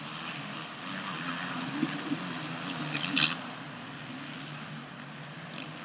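Supercross dirt bike engines running and revving on the track, with a brief sharp sound about three seconds in.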